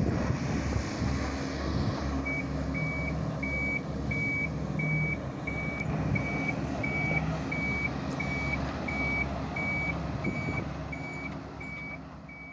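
Komatsu PC130F hydraulic excavator's diesel engine running steadily, with a heavy-machinery warning alarm beeping about twice a second from about two seconds in. The sound fades near the end.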